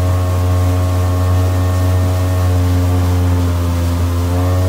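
Boat motor running at a steady speed under way, a constant low drone with a haze of water and wind noise over it.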